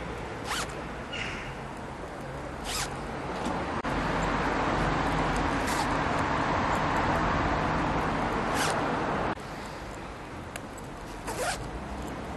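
Hoodie zippers being pulled, five short zip rasps a couple of seconds apart. Underneath is a steady noise that grows louder through the middle and cuts off suddenly about three-quarters of the way in.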